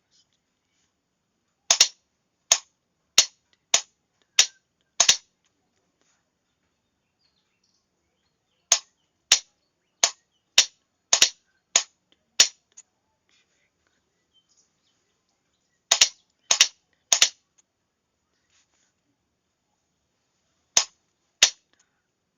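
A hand-worked Morse key clicking out single letters in Morse code. The sharp clicks come in clusters of two to eight, with pauses of about three seconds between letters.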